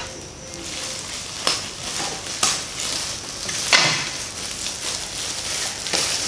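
Clear plastic shrink wrap being picked at and peeled off a cardboard box, crinkling steadily, with about four sharper crackles; the loudest and longest comes a little before the middle of the sounds' run.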